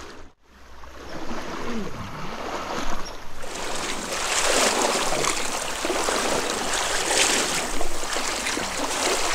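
Stream water rushing and gurgling close by, a steady hiss that swells and grows louder a few seconds in.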